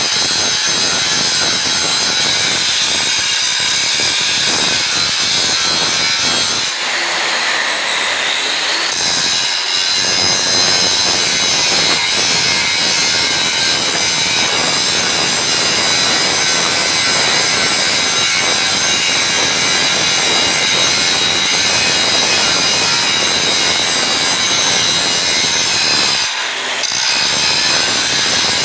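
Angle grinder with an abrasive disc grinding the face of a steel bar, a steady high whine over a continuous grinding rasp; the grinding eases off briefly about seven seconds in and again near the end. It is cleaning the steel surface down to bare metal so that it will forge-weld.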